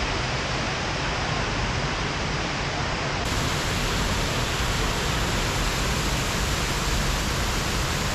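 Waterfall roar, a steady full rush of falling water, turning a little louder and hissier about three seconds in.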